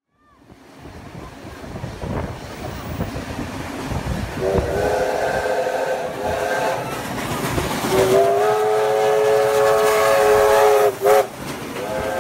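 Steam locomotive 3642, a NSW C36-class 4-6-0, sounding its steam whistle: a long blast, a longer second blast and a short toot near the end. Underneath is the noise of the locomotive working as it draws closer, growing louder over the first few seconds.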